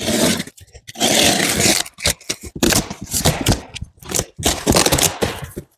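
Cardboard shipping box being opened by hand: packing tape ripping and cardboard flaps scraping in a series of short noisy bursts, the longest about a second in.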